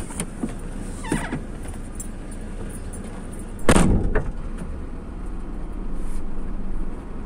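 Parked vehicle's engine idling steadily, heard from inside the cab, with a few light clicks and knocks and one louder thump and rattle a little over three and a half seconds in.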